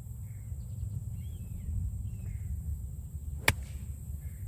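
Pitching wedge striking a golf ball off fairway turf: one sharp click, late on, over a steady low rumble.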